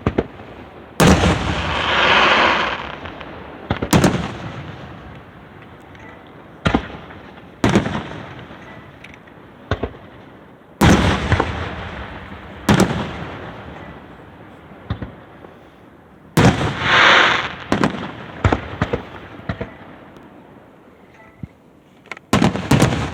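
Fireworks show bursts: about ten sharp bangs at irregular gaps of one to four seconds, each trailing off in a long echo. Two of them are followed by a second or so of crackling.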